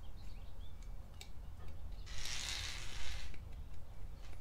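Hands fitting a plastic snap-in clip onto a black steel bumper trim plate: a few faint clicks and a brief rustling scrape lasting just over a second, about two seconds in.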